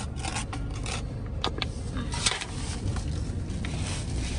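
Crinkling of an aluminium foil pan and a plastic spoon scraping in it, a run of short scratchy crackles and a few sharp clicks, over the low rumble of a car.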